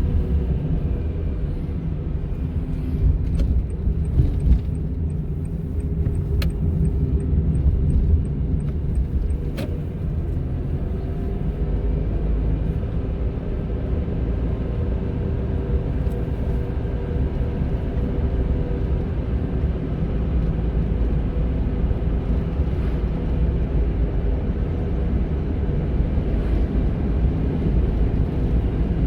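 Honda N-ONE kei car driving, with steady road and engine rumble inside the cabin. A few sharp clicks come in the first third.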